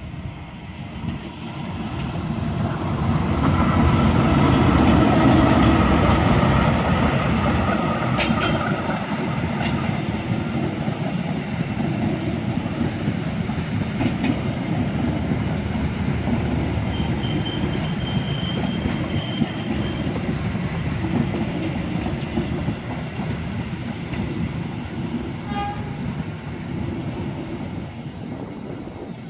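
Passenger train passing close by on the rails: the noise builds to its loudest about five seconds in, then carries on as a steady rumble of coach wheels with a few sharp clanks, easing off near the end.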